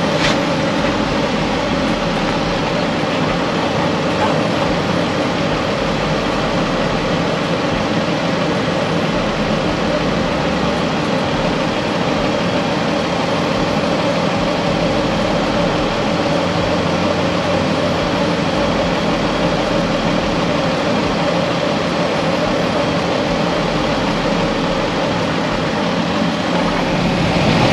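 Dodge Ram ProMaster van engine idling steadily, heard close up at the front of the van, with the A/C switched on but the compressor not engaging.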